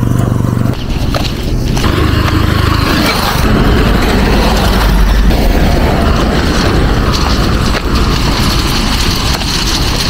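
Motor vehicles on a dirt road: a motorcycle engine, then a pickup truck passing and driving away, with a steady low rumble that peaks about five seconds in.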